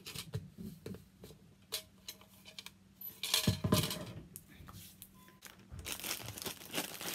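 Handling noises at a craft table: light taps and clinks as a small pail with a wire handle is moved and set down, with a louder clatter about three and a half seconds in. Near the end, a plastic bag of crinkle paper rustles.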